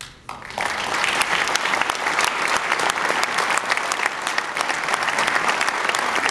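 Audience applauding loudly. The clapping breaks out abruptly and builds to full within about half a second, then holds steady.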